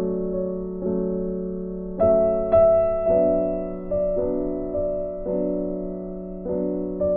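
Background music: slow piano chords, each struck and left to fade before the next.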